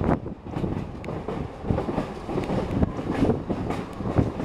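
A moving train's wheels clicking over rail joints, about two clicks a second, over a steady low rumble of the running gear, picked up on board.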